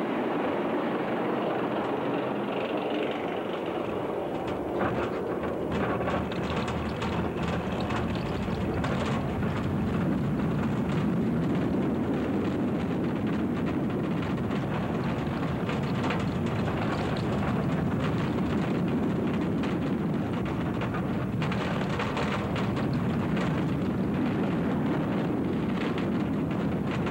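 Alpengeist, a Bolliger & Mabillard steel inverted roller coaster, with its train running on the track: a steady rumbling rush with scattered clatter.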